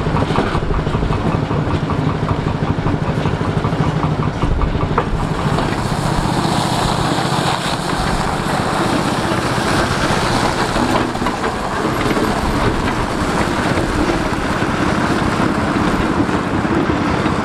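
Engine of a Scammell three-wheeled tractor unit running steadily at low speed.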